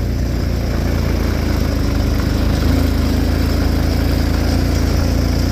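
Four-wheeler (ATV) engine running steadily while the quad is ridden across grass, with the engine note rising slightly a little past halfway.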